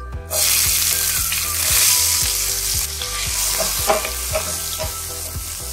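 Chopped green chilies hitting hot ghee and cumin seeds in a steel pan: a sudden loud sizzle about a third of a second in, then steady frying as a wooden spoon stirs them.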